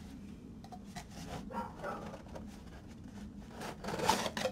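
Cardboard mailer box being opened by hand: the flaps scrape and squeak in short bursts, then a louder crackling rustle about four seconds in as a flap is pulled back.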